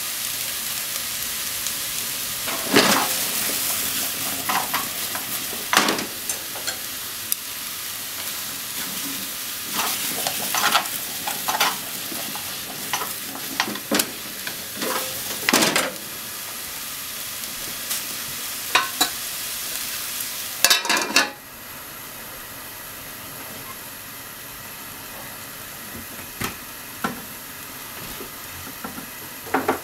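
Potato and onion pieces sizzling in a frying pan, stirred with a utensil that scrapes and knocks against the pan. About two-thirds of the way in, a glass lid clatters onto the pan and the sizzle turns quieter and duller.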